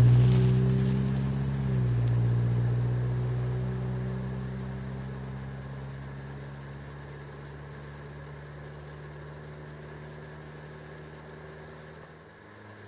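1996 Toyota Camry wagon's four-cylinder engine with a homemade straight-pipe exhaust (2-inch pipe, resonator and catalytic converter kept) pulling away, its deep exhaust note fading into the distance. The pitch drops once about two seconds in.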